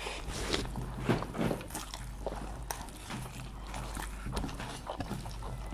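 People eating fast: irregular chewing and short clicks and taps of food and utensils.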